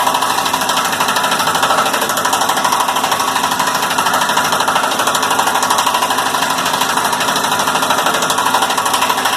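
A machine running steadily and loudly with a fast, even rattling pulse.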